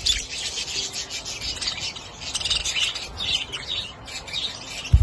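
A flock of budgerigars chattering, with many quick overlapping chirps and warbles.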